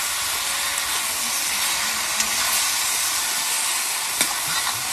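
Mixed vegetables sizzling in oil in a kadhai over a wood fire, a steady hiss, with a few sharp clicks as they are stirred, the loudest about four seconds in.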